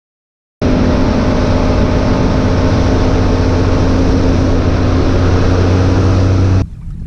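Bass boat's outboard motor running steadily at speed, with a dense rush of wind and water over it; it starts and cuts off abruptly.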